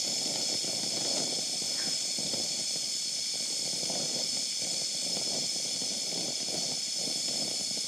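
Oxyacetylene welding torch flame burning steadily, a continuous hiss with a flickering low rush, as it reheats a steel tube to re-melt the weld pool at a restart.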